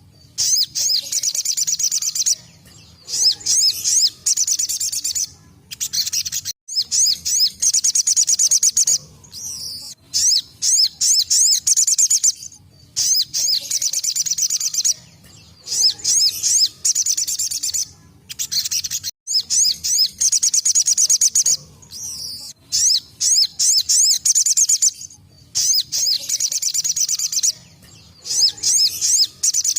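Little spiderhunter (sogon) singing its rapid, high-pitched 'tembakan' song: repeated bursts of fast, sharp notes, each lasting one to two seconds, with short pauses between them.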